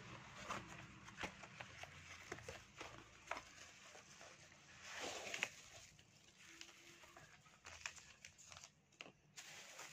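Faint handling noises from a cardboard flask box being opened and a plastic-wrapped steel flask being slid out: scattered light taps and clicks, with a brief louder rustle about five seconds in.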